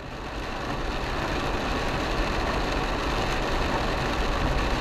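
Cabin noise of an Isuzu MU-X driving on a wet highway in rain: a steady mix of engine hum and tyre noise on the wet road, fading up over the first second.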